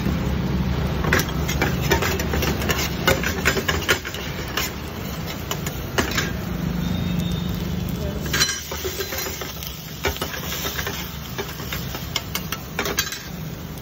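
A slotted metal spatula scraping and clacking against a black frying pan in quick irregular strokes as chopped onions, green chillies and cumin fry in oil, over a steady low rumble that eases about two thirds of the way through.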